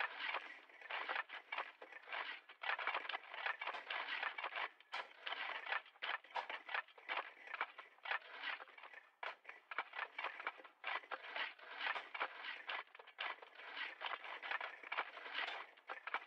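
Several shovels digging in the distance: blades scraping and crunching into the ground in irregular, overlapping strokes, several a second, thin-sounding with no deep tones.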